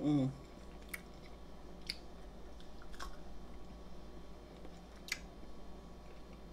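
A person chewing food close to the microphone, with four sharp clicks spaced one to two seconds apart. A short hummed "mm" ends just as it begins.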